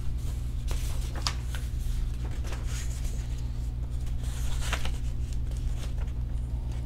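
Pages of a picture book being turned and the book handled: paper rustling with a few soft clicks, over a steady low hum.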